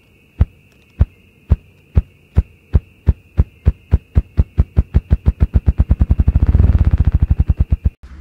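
Ruffed grouse drumming: a male beating its wings in the air, making low thumps about half a second apart that speed up and grow louder into a rapid whir, cutting off just before the end. This is the male's display to claim territory and draw females.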